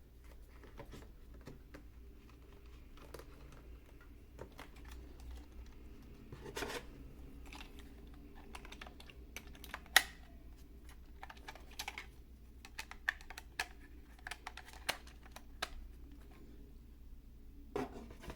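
Scattered plastic clicks and taps from hands working a toy RC truck's battery compartment, fitting the battery and its lid. One sharp click stands out about halfway through.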